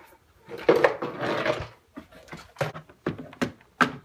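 A burst of rustling and handling noise, then several short sharp knocks and clicks near the end.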